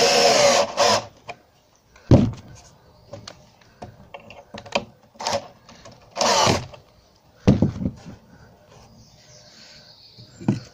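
Cordless drill-driver driving long wood screws into treated softwood stair timbers, in two short runs: one at the start and one about six seconds in. Sharp knocks from handling timber and tools come between them.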